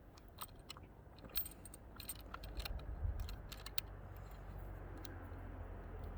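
Scattered light metallic clicks and clinks of track hardware (nuts, bolts and hand tools) being handled at a rail joint, over a faint low rumble that grows from about three seconds in.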